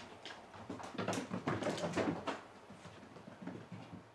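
Quick irregular thumps and patter of footfalls on a wooden floor, densest from about one to two and a half seconds in, during a chase.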